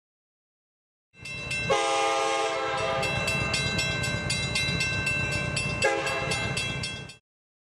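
A railroad crossing bell ringing steadily over the low rumble of a train, while a multi-note diesel locomotive horn blows about two seconds in and again near the end. It all starts suddenly after a second of silence and cuts off abruptly before the end.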